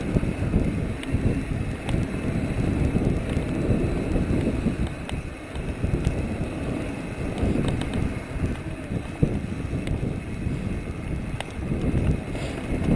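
Mountain bike rolling down a dirt trail: wind buffeting the camera's microphone over the rumble of the tyres, with a few light clicks and rattles from the bike.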